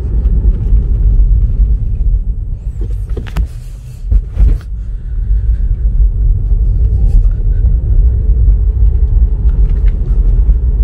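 Steady low road and tyre rumble of a 2020 Tesla Model 3 being driven, heard inside the cabin, with no engine note from the electric drive. About three to four seconds in, the rumble dips briefly and there are a couple of short knocks.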